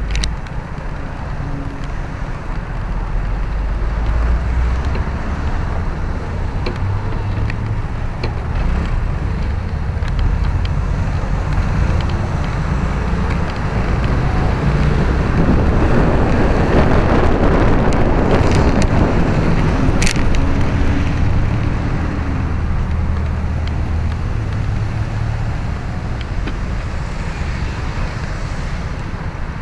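Vespa GTS scooter's single-cylinder four-stroke engine running at low speed in slow traffic, with wind noise on the microphone and surrounding road traffic. The rush of wind and traffic grows louder about halfway through, and the scooter comes to a stop and idles near the end.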